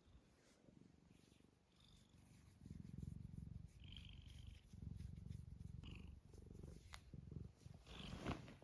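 Domestic cat purring softly in a run of swelling breaths, starting a couple of seconds in after a quiet opening.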